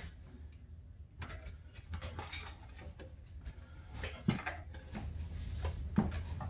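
Snowmobile track being handled and fitted onto the chassis: scattered knocks, clicks and rustles of the rubber track and its metal clips, the sharpest knocks about four seconds in and near the end, over a low steady hum.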